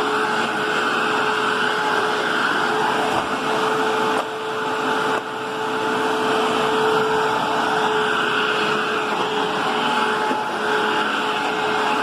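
Hoover upright vacuum cleaner running steadily, its motor giving a constant whine over a steady airflow noise, with two brief dips in level about four and five seconds in.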